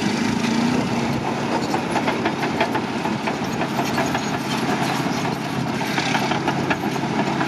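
Caterpillar D9N bulldozer's turbocharged V8 diesel running steadily, with a rapid clicking clatter over it.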